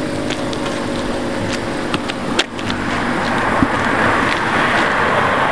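Road vehicle noise: a steady engine hum, then the rushing noise of an approaching vehicle swelling from about halfway through, with scattered light ticks.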